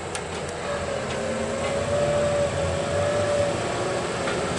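Heavy mining machinery running: the low drone of the diesel engines of a Liebherr R 996 hydraulic mining excavator and a rigid haul truck manoeuvring beside it, with a high, slightly wavering whine held over it for a few seconds through the middle.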